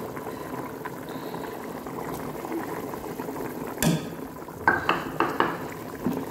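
Black chickpea curry boiling in an aluminium pot, bubbling steadily. A wooden spoon knocks against the pot once just before four seconds and a few more times soon after.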